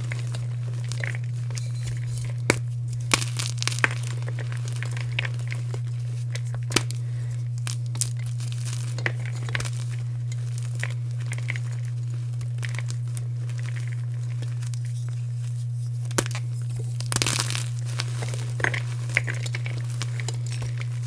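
Gym chalk being crumbled: scattered sharp crunches and crackles, bunched around three seconds in and again near the end, over a steady low hum.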